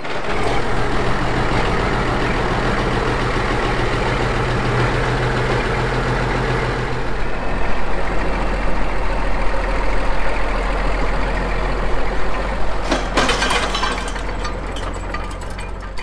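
International Harvester 5088 tractor's six-cylinder turbo diesel engine running as the tractor drives out of a machine shed; the engine note steps down about seven seconds in.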